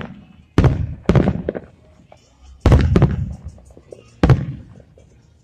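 Aerial firework shells bursting: about six sharp booms, mostly in quick pairs (one at the start, two about a second in, two near the middle, one about four seconds in), each trailing off in an echo.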